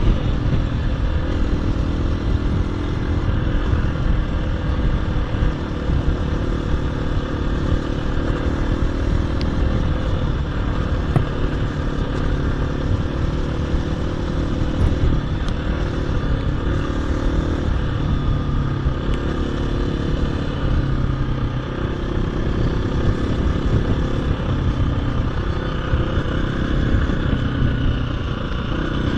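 KTM 350 EXC-F single-cylinder four-stroke dirt bike engine running as the bike rides along, its pitch rising and falling with the throttle.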